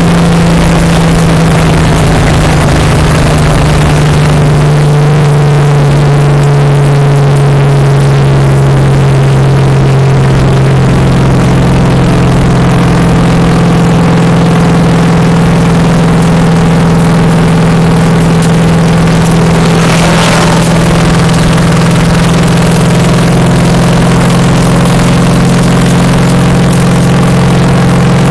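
A stock car's V8 engine running hard at a steady high speed around an oval, heard loud from inside the car, its drone dipping slightly in pitch a few seconds in. A brief rush of noise comes about twenty seconds in.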